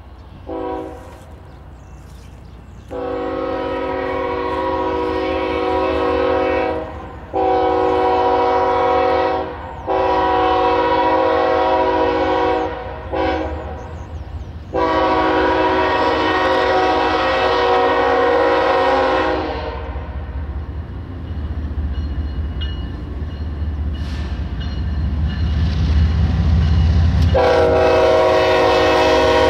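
Approaching BNSF freight diesel locomotive's multi-note air horn blowing a series of long blasts with a short one among them, the pattern sounded for a grade crossing. Between and after the blasts the low rumble of the locomotives grows as the train nears, and a further long blast starts near the end.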